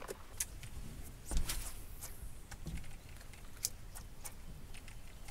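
Faint, scattered clicks and ticks with one soft knock about a second and a half in: handling noise of a spinning rod and reel and small knocks aboard a fishing boat during a cast.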